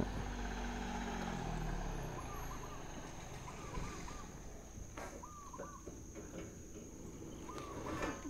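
Outdoor ambience: a few short bird calls and a steady high insect drone. A low engine-like hum falls in pitch and fades during the first two seconds.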